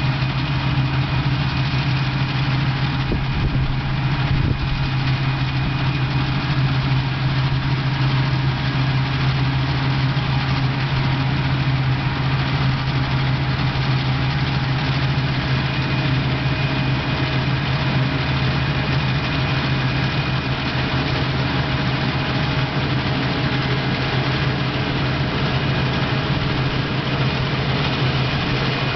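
Claas combine harvester running at work in the crop: a steady machine drone with a strong low hum and several fainter steady higher tones.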